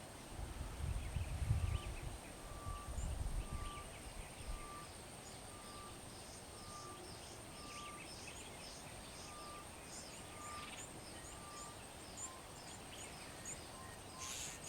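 Wild birds calling in the bush: one bird repeats a single short whistled note about once every 0.7 seconds, while others give quick high chirps. A low rumble sounds in the first few seconds.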